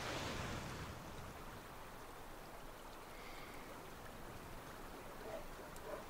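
Faint outdoor ambience on calm water: a soft, steady water-like hiss, slightly louder in the first second, with a few faint short sounds near the end.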